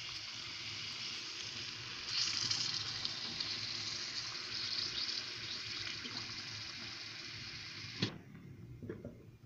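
Water poured from a plastic bottle into a hot karahi of fried fish and masala, a steady splashing hiss that grows louder about two seconds in. It cuts off suddenly with a click about eight seconds in.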